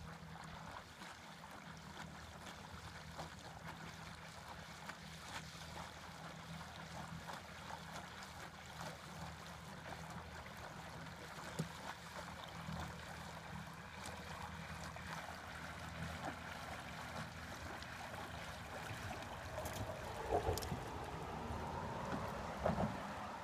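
Small plywood boat pushed by an electric trolling motor, moving through calm water: a steady wash of water that grows louder as the boat comes closer, with a few sharper splashes and laps near the end.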